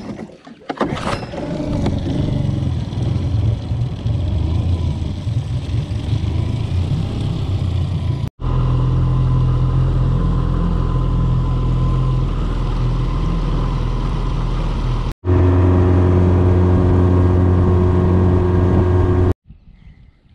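An engine running steadily at a constant speed. It breaks off abruptly about eight and fifteen seconds in, each time resuming at once with a slightly different tone, and stops about a second before the end.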